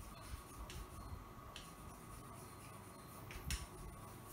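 Chalk writing on a chalkboard: a few faint taps and short scratches, spaced about a second apart, over quiet room tone.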